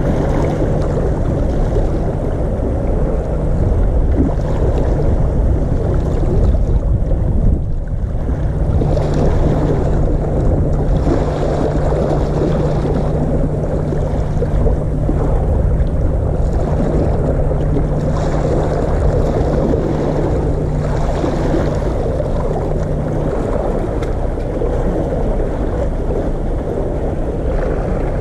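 Sea waves washing and sloshing against concrete tetrapods, with wind buffeting the microphone. A low steady hum runs under it and stops about three-quarters of the way through.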